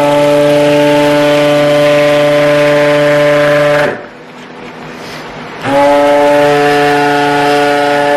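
Electric blender motor running at speed, mixing lye water into melted oils and butters for soap batter. It winds down and stops about four seconds in, then starts again and spins up a second and a half later.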